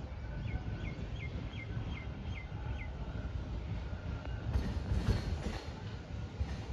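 Electric multiple-unit (MEMU) passenger train coming on after leaving the station: a low rumble of wheels on track that grows louder, with wheel clatter over the rail joints from about four and a half seconds in. A bird calls a short falling note about seven times in the first three seconds.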